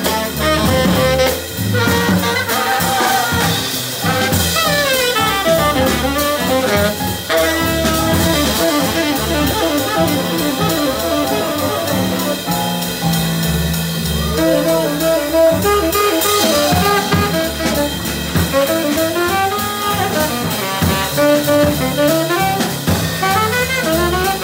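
Live small jazz band playing a swing tune: a tenor saxophone solos in quick runs of notes rising and falling, over walking upright bass and drum kit.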